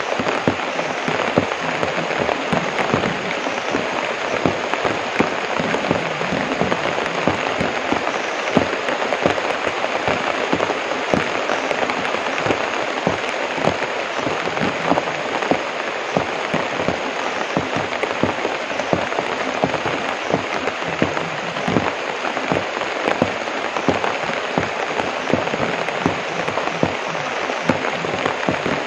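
Heavy rain falling on banana leaves: a steady hiss thick with sharp pattering drops, even throughout.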